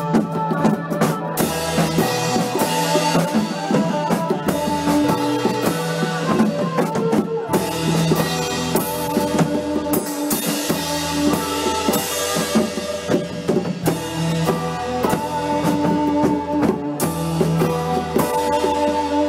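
Live rock band recording: a drum kit keeps a steady beat under held bass notes and lead guitar.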